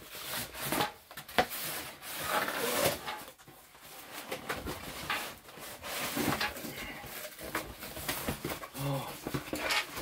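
Corrugated cardboard box being torn open and handled: irregular tearing, scraping and rubbing of cardboard flaps, with a few sharp snaps.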